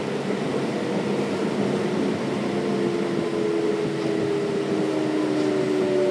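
Running noise inside the cabin of a Kintetsu 5800 series electric train: a steady rush of wheels on rail over the air-conditioning hiss, with the whine of its Mitsubishi GTO-VVVF inverter and traction motors. The whine is several tones that slowly fall in pitch, and another tone joins near the end.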